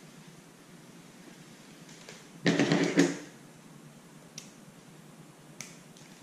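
A short burst of a man's voice, a cough or an unclear word, about two and a half seconds in, then two faint clicks from scissors being handled.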